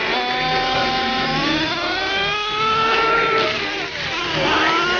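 Nitro RC truck engine revving hard. Its high-pitched note climbs for about three seconds as the truck accelerates, drops back, then climbs again near the end.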